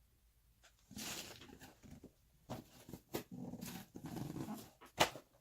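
A dog vocalizing in several short bouts, with a sharp click near the end.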